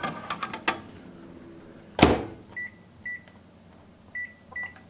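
Convection microwave oven: a tray clatters in, the door shuts with one loud thud about two seconds in, and then four short keypad beeps sound as the cooking time is set.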